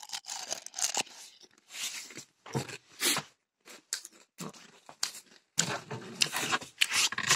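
Irregular rustling, crinkling and sharp knocks of packaging and objects being handled and moved about.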